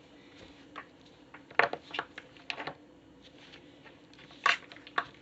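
Fidget toys being stepped on: a handful of short sharp pops and crackles, clustered twice with quiet between.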